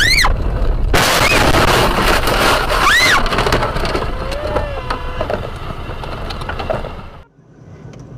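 A car crashing head-on into a tractor: a loud crunching impact about a second in, with the windshield shattering and glass and debris rattling for about two seconds. Short high squeals come just before the impact and again about two seconds after it. The noise trails off and then cuts out.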